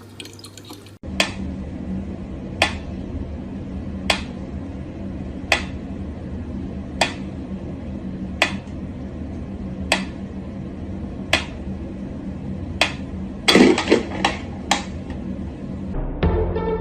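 Sharp clicks at a steady pace, about one every second and a half, over a steady low hum, with a quick run of several clicks near the end.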